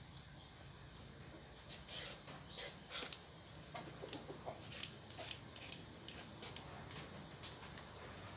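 Red Y-peeler scraping strips of skin off a papaya: a run of short, crisp, irregular strokes starting about two seconds in.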